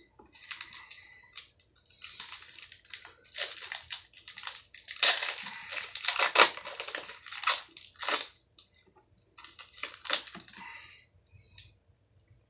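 Foil wrapper of a 2018 Panini Contenders football card pack crinkling and crumpling in the hands as the pack is opened. The crackling comes in irregular handfuls, loudest around the middle, and stops about a second and a half before the end.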